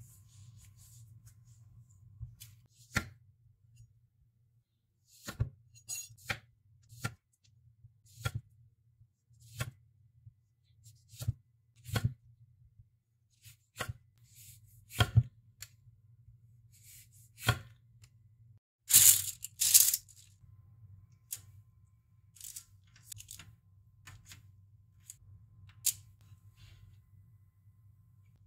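A knife slicing lemons and limes into thin rounds on a wooden cutting board, each cut ending in a sharp tap of the blade on the board, at uneven gaps of about a second. About two-thirds of the way through comes a louder rustling sound lasting about a second.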